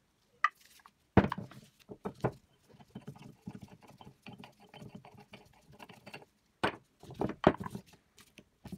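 Metal clinks, knocks and scraping from an old two-sided metal cookie mould and a screwdriver working at its handle joint on a wooden table. The knocks are irregular, with the sharpest about a second in and again near the end, and smaller clicks and rattling between them.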